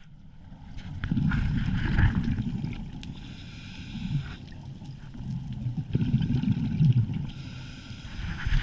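Scuba diver's exhaled bubbles from the regulator, rumbling and gurgling in two bouts about five seconds apart, with a fainter hiss between them. The sound is muffled through the GoPro's underwater housing.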